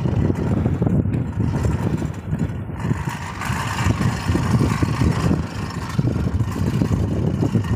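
Wind buffeting the microphone in an uneven, fluttering low rumble.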